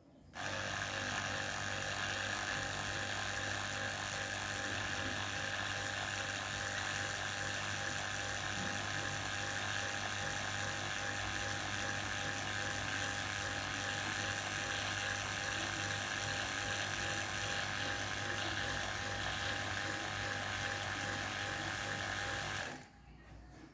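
Small electric diaphragm pump running with its ports open and no hoses attached: a steady motor hum with a rapid rattle from the pump head. It starts about half a second in and cuts off suddenly shortly before the end.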